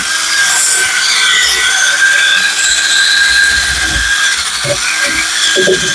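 A hand-held power tool running steadily while it scrubs grime and rust off a clamped steel lawnmower blade, with a steady motor whine over a harsh hiss. The whine sags briefly a little past four seconds in, as the tool bears harder on the metal.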